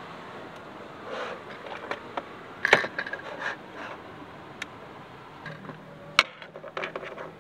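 Objects being handled in the dark: a scatter of short clicks and knocks with light rubbing and scraping, the sharpest knocks about a third of the way in and again near the end, over a steady background hiss.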